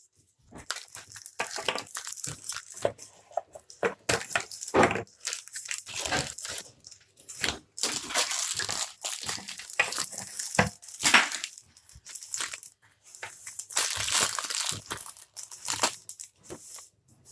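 Paper and plastic wrapping of Mash'ems toy capsules being crinkled and torn open by hand, in irregular crackling bursts.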